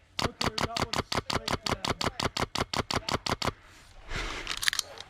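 Airsoft gun firing a fast, even string of shots, about seven a second, which stops about three and a half seconds in. A short burst of rustling noise with a few sharp clicks follows near the end.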